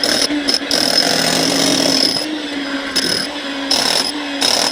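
Electric rotary hammer chiseling into a pool's gunite concrete, running in several bursts with brief let-ups between them.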